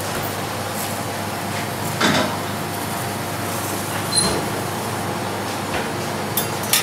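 Steady mechanical hum of kitchen ventilation, with a few light metallic clinks of a metal spatula against a wire-mesh basket, about two, four and near seven seconds in.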